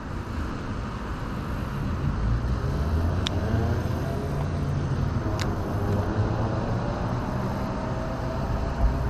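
Road traffic passing nearby: a steady low rumble of engines and tyres, with a vehicle sweeping past through the middle. Two short sharp clicks stand out a couple of seconds apart.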